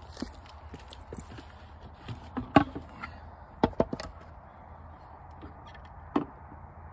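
Sharp knocks and clunks from handling the red float cover of a Ritchie stock water trough: one loud knock about two and a half seconds in, three quick ones a second later, and one more near the end.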